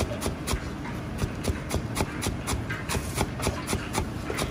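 Chinese cleaver chopping a heap of sliced long green onions on a cutting board: quick, even knocks of the blade on the board, about four a second, over a steady low rumble.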